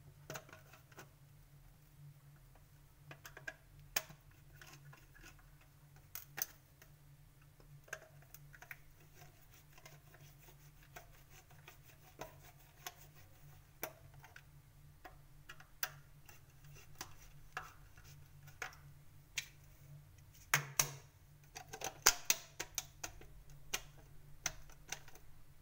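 Plastic rocker switch on a kitchen switch board being clicked on and off again and again, working a sticky switch free; sharp, irregular clicks with a quick flurry about three-quarters of the way through, over a faint low steady hum.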